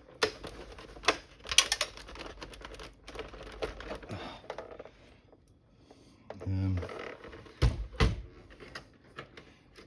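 Plastic LCD monitor casing being shaken, with a loose broken HDMI connector inside rattling and clattering in a dense run of clicks for about five seconds. Two sharp knocks follow near the end.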